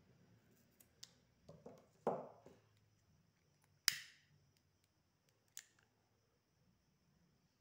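Scissors snipping through plastic cord a few times, then a lighter struck with a sharp click about four seconds in and again about a second and a half later, lit to melt the cut cord ends.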